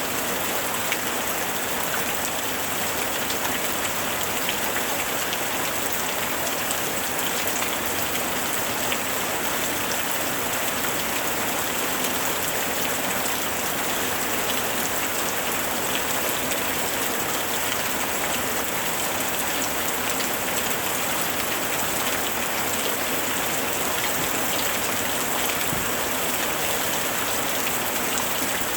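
Steady rain falling, a dense even patter of many drops striking a surface, with no breaks or changes.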